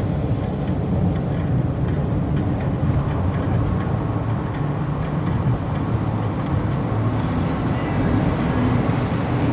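Steady low rumble of a moving vehicle, an even running noise without distinct events.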